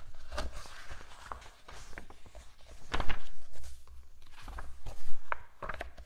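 Pages of a grammar book being leafed through by hand: paper rustling and flicking in irregular short crackles, with two louder handling bumps about three and five seconds in.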